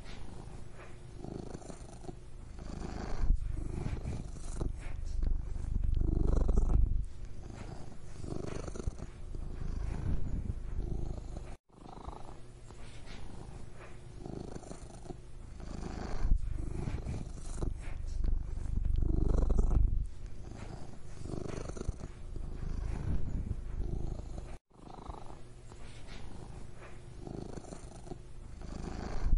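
A domestic cat purring continuously, a low rumble that swells and fades in slow cycles. It briefly cuts out twice, about 13 seconds apart.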